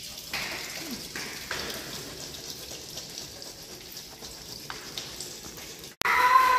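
Water spraying out of the open end of a blue PVC water pipe and splattering onto a concrete floor, a steady hiss that surges a few times early on. The sound cuts off abruptly near the end.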